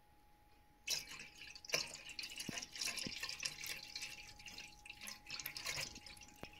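Water splashing and dripping, starting about a second in, as the top water is scooped off a settled bracken-starch solution to leave the starch sediment at the bottom.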